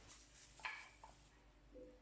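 Near silence: room tone with a faint steady hum and a few very faint, brief soft sounds.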